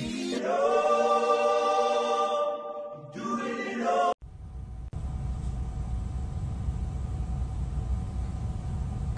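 A choir holding a sustained chord, broken by a short dip, that cuts off abruptly after about four seconds. A steady low rumble follows.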